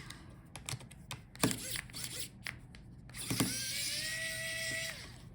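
A few light clicks, then, about three seconds in, a small electric screwdriver's motor whines steadily for under two seconds while backing out a laptop speaker screw.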